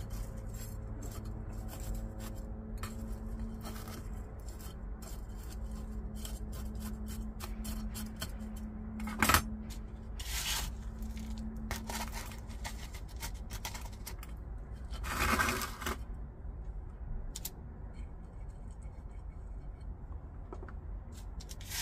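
Small clicks and gritty scrapes of repotting by hand: thin metal rods tapping the plastic tray and potting mix with coarse gravel shifting in a small pot. One sharp click about nine seconds in is the loudest sound, with a longer gritty scrape around fifteen seconds. A low steady hum lies underneath, with a faint held tone through the first half.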